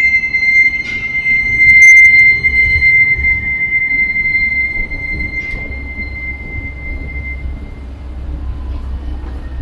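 Light rail tram's wheels squealing against the rails as it passes: one high, steady squeal, loudest about two seconds in and fading away around seven seconds, over a low rumble.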